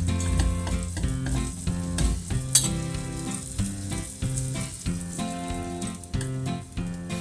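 Food frying and sizzling in a pan, with sharp clicks of a utensil stirring, over background music with held, changing notes.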